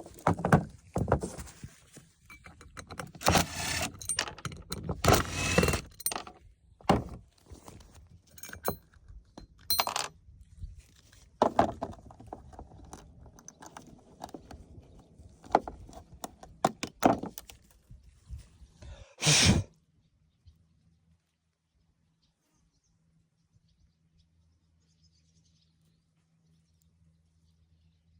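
Irregular clatter, knocks and scrapes, like tools and metal parts being handled during repair work. They stop after about twenty seconds, leaving near silence with a faint low hum.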